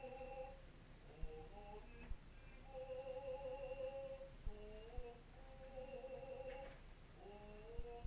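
A faint voice humming a series of short held notes, some sliding in pitch, with a few soft low knocks in between.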